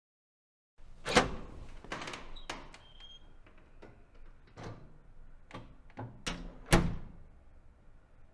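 A metal push door being opened: a sharp metallic clunk about a second in, then a string of knocks and clicks with a brief squeak, and two more loud clunks near the end.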